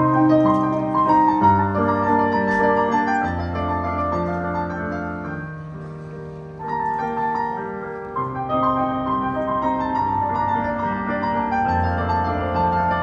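Background music: a slow piano piece of held chords and notes that change every second or two.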